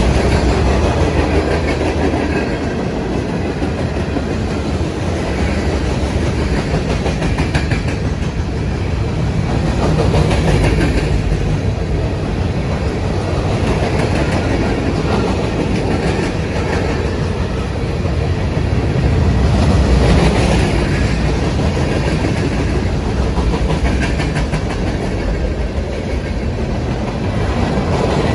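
Norfolk Southern manifest freight train's cars rolling past: a steady rumble of steel wheels on rail with a clickety-clack over the rail joints, swelling a little louder twice.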